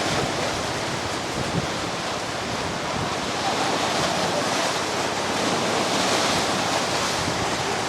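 Steady rushing of water, with wind on the microphone; it swells a little about halfway through.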